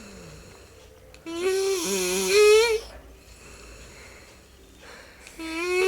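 An elderly woman snoring: two long, pitched, whistling snores. The first comes about a second in and the second starts near the end, with a quiet breath between them.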